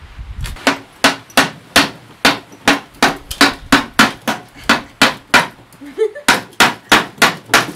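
Hammer striking the rim of a terracotta clay pot again and again, sharp knocks about two to three a second with a short pause near the end, as it is tapped to crack the pot from the top.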